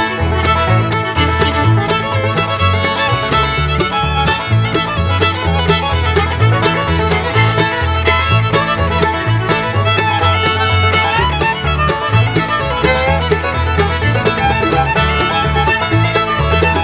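Background music: an upbeat bluegrass-style tune with fiddle, banjo and guitar over a steady bass beat.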